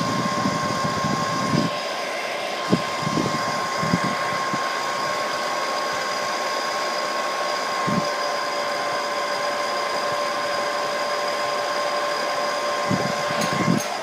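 A hand-held hair dryer runs steadily: an even rush of air under a constant whine, with a few low thumps, and it cuts off at the very end.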